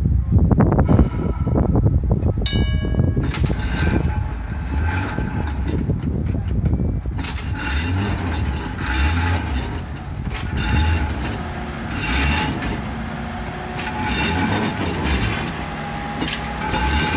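Vintage electric freight tram (1903 Sydney freight car 24s) rolling slowly past on its overhauled motors and running gear: low rumble and hum with rattling and clicking from the wheels and trucks, growing busier as it draws alongside. Wind buffets the microphone at the start, and there is a short ringing tone about two and a half seconds in.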